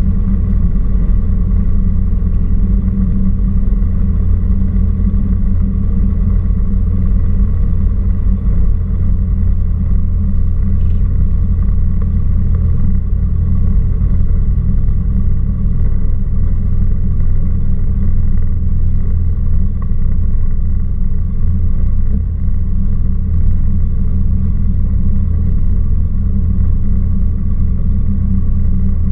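Cessna 172R Skyhawk's four-cylinder Lycoming engine and propeller running steadily at low taxi power, a loud, even drone.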